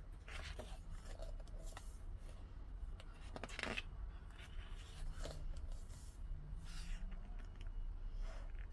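Pages of a large photobook being turned by hand, the paper sliding and rustling several times, the loudest turn a little past the middle.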